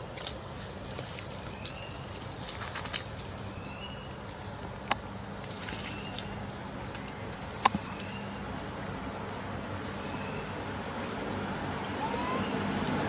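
Steady high-pitched drone of an insect chorus, crickets or cicadas, with a few short rising chirps over it and two sharp clicks near the middle.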